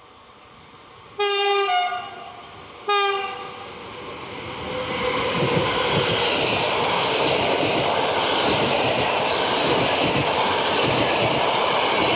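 Train locomotive sounding its horn twice, a longer blast then a shorter one, followed by a PKP Intercity passenger train passing close by: a loud, steady rush and rumble of the wheels on the rails.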